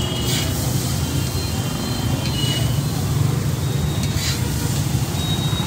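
Steady low rumble of street traffic, with a couple of short metallic scrapes of a spatula on a flat iron griddle as chowmein noodles are tossed.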